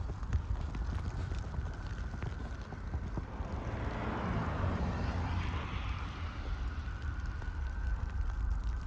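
Footsteps crunching in snow over a steady low rumble of wind on the microphone. About four seconds in, a passing vehicle's tyre hiss on the snowy street swells and fades.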